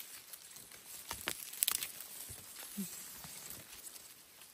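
Leaves and stems rustling and crackling as a hand pushes through long-leaved plants, with a few sharp crackles about a second in and again shortly after.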